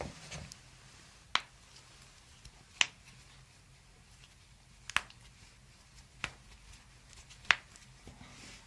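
Joints in the back cracking audibly during a chiropractic adjustment: five sharp pops spaced a second or more apart, the loudest near the end.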